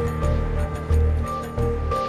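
Background music with a steady beat: repeated bass notes under sustained tones.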